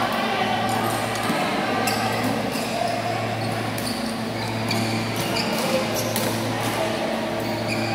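Badminton doubles rally: sharp strikes of rackets on the shuttlecock at irregular intervals, echoing in a large hall, over a steady hum.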